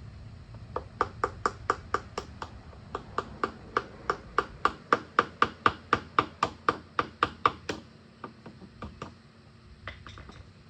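Screwdriver handle tapping the back of a utility knife blade in quick succession, about four taps a second, driving the blade under the edge of a glued-in plug disc to pop it off. The taps stop about eight seconds in, and a few fainter ones follow near the end.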